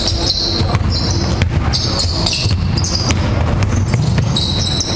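A basketball bouncing on a wooden gym floor, with repeated short high-pitched squeaks of players' shoes on the court, over the steady background noise of the hall.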